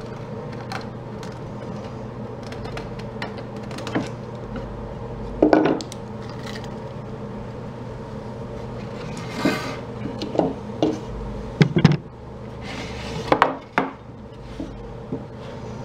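Irregular wooden knocks, clinks and scraping from wooden boards and loose hardware being handled, over a steady low hum.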